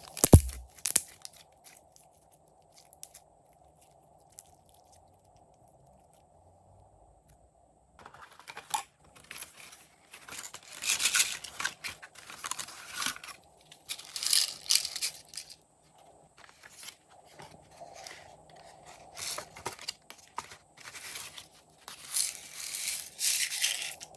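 A sharp knock, then hands handling something that crinkles and tears, in irregular bursts from about eight seconds in.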